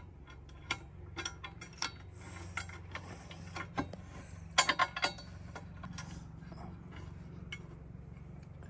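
Heavy steel coupler guard being shifted and worked into place against a skid steer's hydraulic quick-coupler block: scattered metal clicks and clinks, with a cluster of three sharp knocks about four and a half seconds in, over a low steady hum.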